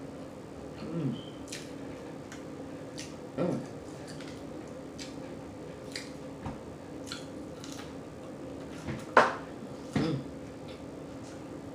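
Close-miked eating: wet chewing and lip-smacking with many sharp mouth clicks. Four louder short mouth sounds with a falling pitch stand out, the loudest about nine seconds in.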